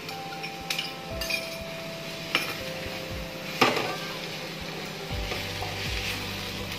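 Vegetables and noodles sizzling in a kadai while a wooden spatula stirs them, knocking sharply against the pan three times.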